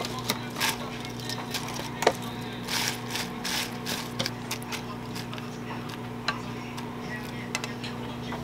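Crisp lettuce leaves being torn by hand and dropped into a wooden salad bowl: a run of sharp crackles over the first four seconds, then sparser light clicks. A steady low hum runs underneath throughout.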